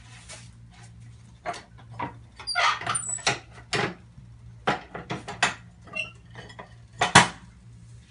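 Plastic sheets crinkling and rustling on a tortilla press, with a series of sharp clacks and knocks as the press is handled, closed on a ball of dough and opened again.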